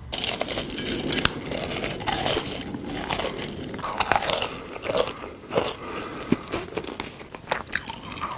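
Close-miked crunching and chewing of crisp food, a dense run of crackly bites.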